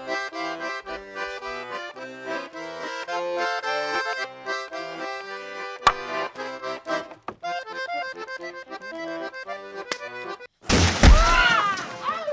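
Jaunty accordion music, broken once by a sharp slap about six seconds in. Near the end the music cuts off and a loud crash takes over as the wooden puppet booth collapses and splinters.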